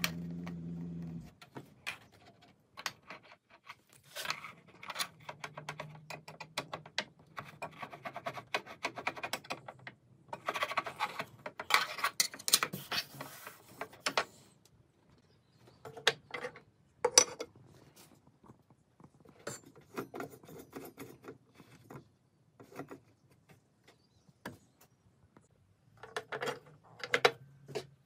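Light clicks, taps and scraping as the metal throat plate of a DeWalt DWE7485 table saw is handled, pressed and seated in the saw's table. A steady hum cuts off about a second in.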